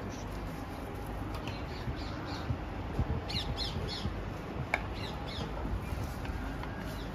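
High, bird-like squawking calls in a few quick runs of three or four, over a steady hubbub of background noise, with one sharp click just before the last run.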